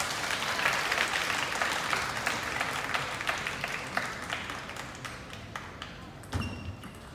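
Spectators applauding a won point, the clapping dying away over several seconds.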